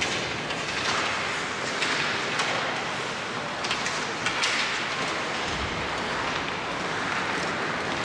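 Ice hockey play heard from the stands of an indoor rink: a steady hiss of the arena and skates on the ice, with scattered sharp clacks of sticks and puck and a dull thump about five and a half seconds in.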